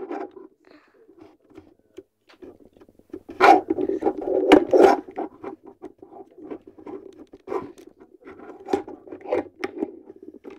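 Plastic clicking and scraping as a Transformers Ratchet toy figure is handled and its parts are turned, loudest in a cluster about three and a half to five seconds in.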